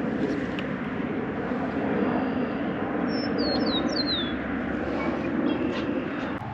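A small bird gives a quick series of four or five high chirps, each sliding down in pitch, about three seconds in. This sits over a steady outdoor background rumble that drops off suddenly near the end.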